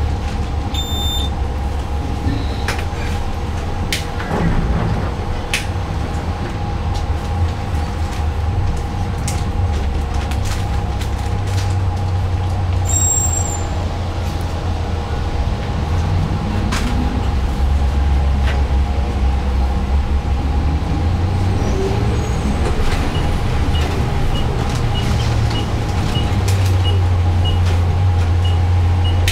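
Cabin sound of an electric trolleybus: a steady low hum and rumble from the electric drive and the road, with a steady whine over it and a few sharp clicks and knocks. Faint ticking about twice a second starts near the end.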